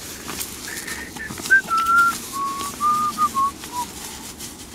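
A person whistling a short tune: a string of clear notes wandering up and down in pitch, ending about four seconds in. Beneath it, the rustle of nylon sleeping-bag fabric being handled.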